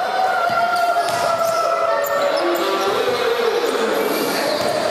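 Players and spectators shouting and cheering in a gymnasium at the end of a basketball game, with long drawn-out calls that slide in pitch over a general din.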